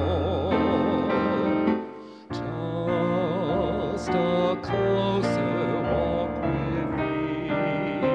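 A solo voice singing with vibrato over sustained keyboard chords, probably a hymn. The music breaks off briefly about two seconds in, then carries on.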